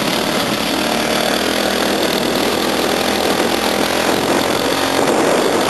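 A 10 hp go-kart engine running steadily while the kart is driven, heard from on board with a dense rush of wind and rattle mixed in.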